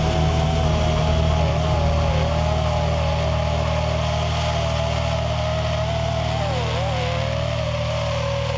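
FPV quadcopter's electric motors and propellers whining in flight, over a steady low hum. The pitch wavers up and down as the throttle changes, with a dip about seven seconds in.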